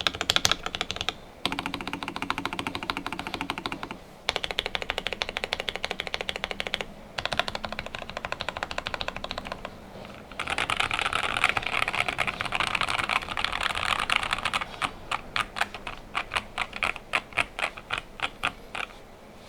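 Typing on a Nuphy Air75 low-profile mechanical keyboard with lubed Gateron Low Profile Brown tactile switches, a steel plate, PE foam and tape mod, and PBT keycaps. Fast runs of keystrokes with brief pauses between them, then slower, separate key presses near the end that stop shortly before it.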